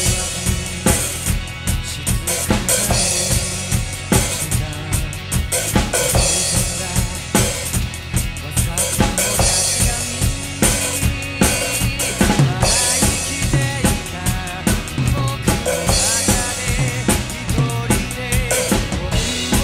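Acoustic drum kit played hard in a steady rock beat, bass drum and snare driving it and cymbal crashes coming every few seconds. A recorded rock song with guitars and vocals plays underneath as the backing track.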